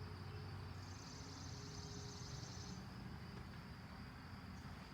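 Quiet, steady high insect trill, with a louder high buzzing trill for about two seconds in the middle, over a low rumble.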